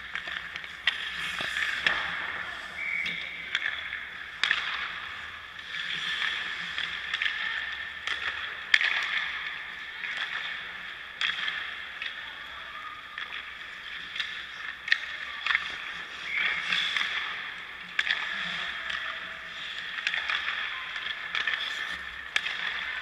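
Ice hockey practice in a rink: skate blades scraping and carving the ice, with sharp knocks of pucks and sticks striking at irregular intervals, one louder crack about nine seconds in. The sound echoes in the arena.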